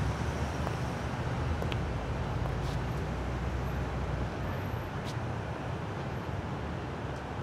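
Steady city street traffic noise: a low rumble of vehicles with a few faint ticks.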